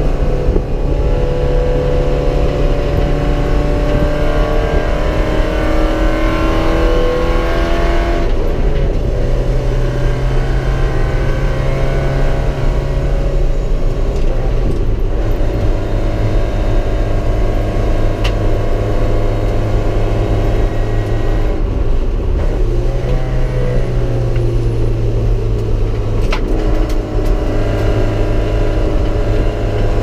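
Porsche 944 race car's four-cylinder engine heard from inside the cabin while lapping a track. The engine note climbs steadily, drops suddenly about eight seconds in, and climbs again. It drops and recovers a few more times through the rest of the lap.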